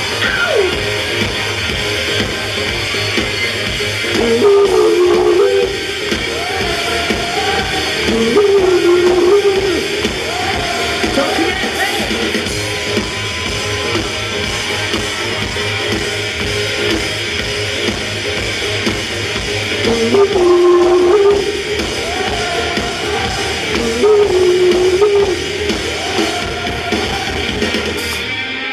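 Rock band playing live with a singer, the sung phrases returning every few seconds over guitar and drums. The music stops abruptly near the end.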